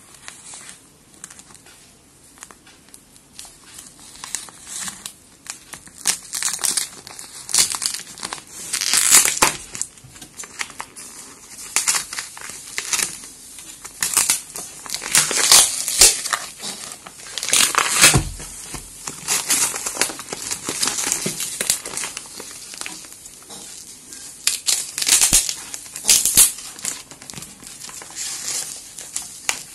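A parcel's cardboard box and wrapping being torn open and crumpled by hand. Irregular crinkling and ripping, faint at first, then louder and busier, with sharp tears every second or two.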